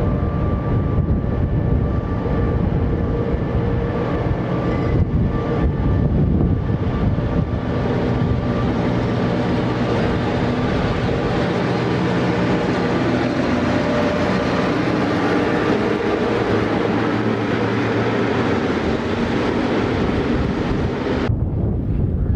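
NOHAB diesel locomotive's EMD two-stroke V16 engine running under load as it hauls a passenger train in and past at close range, with the steady drone of the engine and the rumble of the train on the rails growing fuller as it comes alongside. The sound cuts off suddenly near the end.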